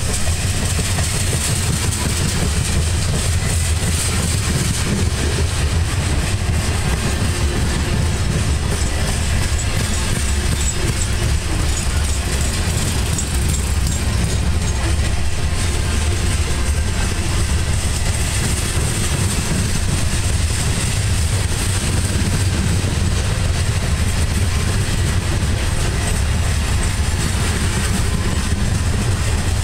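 Freight train cars, a string of open-top hopper cars, rolling steadily past: a continuous low rumble of steel wheels on rail with faint clicking.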